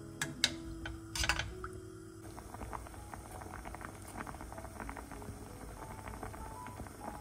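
A metal ladle knocks a few times against a stainless steel pot while stirring potato cubes in water. From about two seconds in comes a dense, fast crackle of small pops as the pot of potatoes boils hard under foam.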